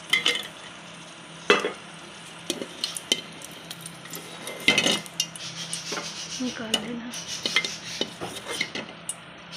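A plastic spoon scraping and knocking against a metal pot while fried cashews and walnuts are scooped out of a little hot fat, with a faint sizzle. The knocks come irregularly, the loudest about halfway through, and come thicker near the end.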